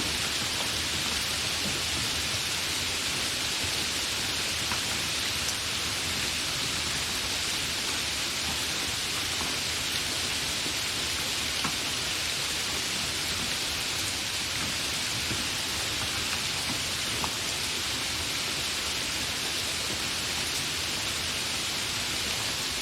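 Steady, fairly heavy rain with no thunder: an even hiss with the odd louder drop standing out.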